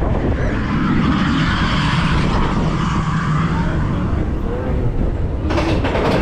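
Vekoma family coaster train rolling along its track, a steady low rumble of wheels. About five and a half seconds in, a rapid clattering starts.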